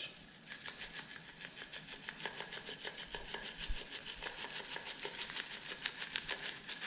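A spice shaker of garlic salt being shaken by hand: a rapid, even rattle of grains against the bottle, starting up about half a second in.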